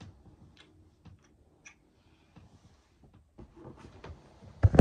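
Faint scattered clicks and soft rustling of bedding, then loud knocks and rustle near the end as the camera is grabbed and handled.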